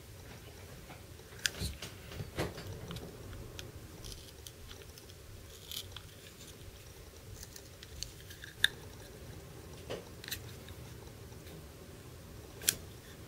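Irregular sharp clicks and light scraping of a DPX HEST folding knife's parts being worked by hand, as the tightly press-fit G10 handle slab is forced against its pin.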